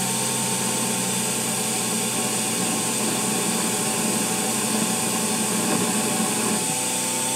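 EMCO Unimat SL's small electric motor and belt-and-pulley drive running steadily, with the machine set up as a drill press and the bottom belt on the lower pulley for its slower speed: an even hum with a higher whine over a hiss.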